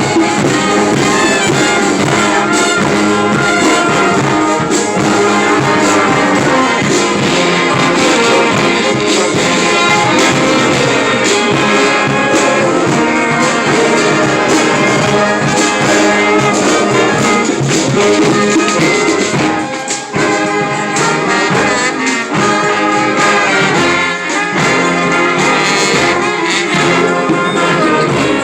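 A street brass band playing, trumpets and trombones over a steady drum beat.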